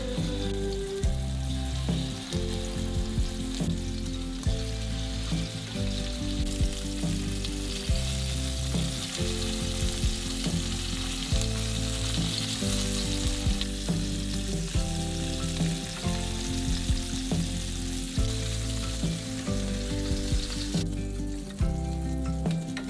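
Pork loin steaks sizzling as they sear in hot oil in a frying pan, over light background music. The sizzle drops away near the end, as the pan empties.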